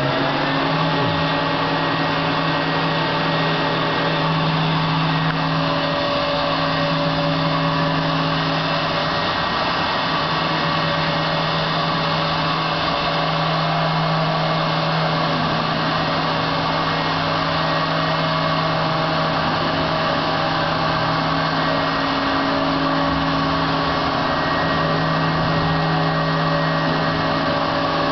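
Motionmaster 3-axis CNC router running, its spindle motors whining at a steady pitch, with a steady machine hum beneath.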